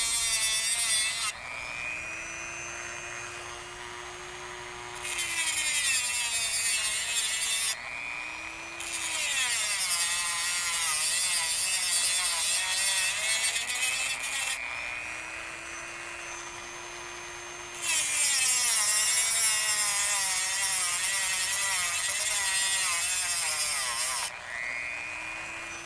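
Dremel rotary tool cutting through a steel swage clamp on a CV joint boot, in four gritty grinding passes of a few seconds each. Between passes the tool spins free and its motor whine rises in pitch.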